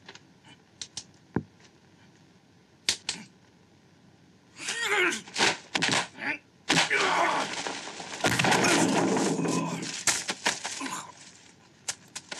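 Kung fu film fight sound effects: a few sharp, separate punch hits, then from about four and a half seconds in a loud, dense flurry of blows and swishes lasting several seconds.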